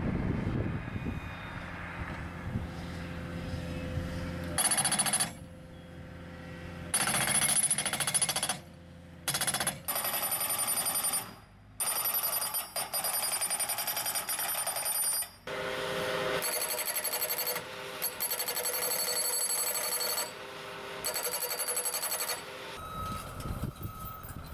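Skid-steer-mounted hydraulic post drivers hammering wooden fence posts: rapid metallic pounding that starts and stops abruptly several times, with the skid steer's engine running underneath.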